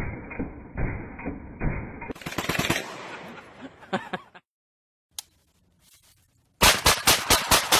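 Gunshots in quick succession. First a semi-automatic pistol fires shot after shot, sounding muffled. After a short pause, a rapid string of much louder shots comes about six a second near the end.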